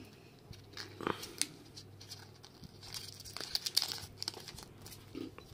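Thin plastic protective film being peeled off a smartwatch, crinkling in short scattered bursts that are busiest around three to four seconds in.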